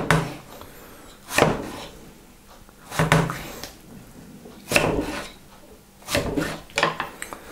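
Kitchen knife cutting blanched, peeled tomatoes in half on a wooden cutting board, the blade knocking on the board about every second and a half.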